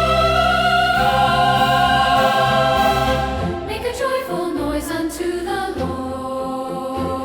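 Choir singing with symphonic accompaniment: a loud sustained chord held for about three seconds, then a softer passage of shorter notes.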